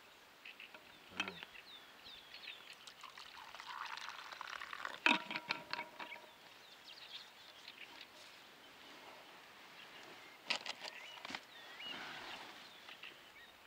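Small birds chirping. About four seconds in there is a short stretch of liquid pouring, and a few sharp clicks of handling are scattered through.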